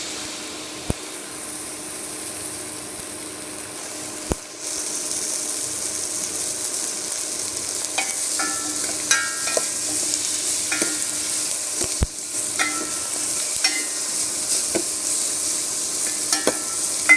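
Thuthuvalai leaves, spices and garlic frying in sesame oil in a pan, with a steady sizzle and a spatula stirring and scraping against the pan. The sizzle grows louder about four and a half seconds in, and the scraping strokes come often from about eight seconds on.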